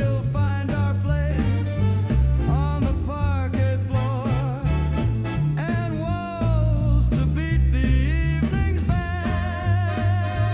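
Swing dance-band music in an instrumental break: a steady beat and a walking bass under a lead melody line with vibrato.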